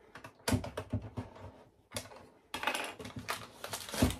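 Hard plastic clicking and rattling as a small plastic key is worked in a Monster High Skulltimate Secrets toy locker's top door and the door is opened. A few clicks come about half a second in and again near two seconds, a busier run of clicks follows from about two and a half seconds, and a sharp knock, the loudest sound, comes just before the end.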